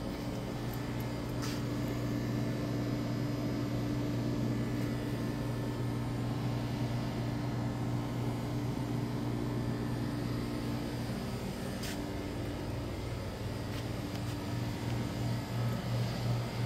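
Steady low mechanical hum of a large building's ventilation and lighting, a level drone that begins to pulse a few times a second near the end.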